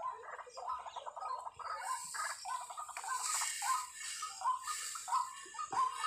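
Repeated croaking animal calls: rapid rattling series that break into separate croaks about three a second toward the end. A rush of wind noise comes through in the middle.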